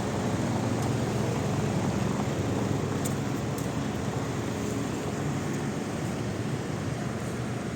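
Steady low drone of running engines, with a couple of faint ticks about three seconds in.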